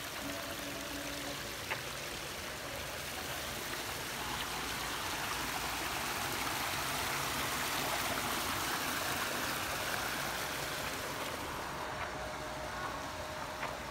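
Water running down a small rock cascade into a pond: a steady rush that swells louder midway and eases near the end. A single sharp click about two seconds in.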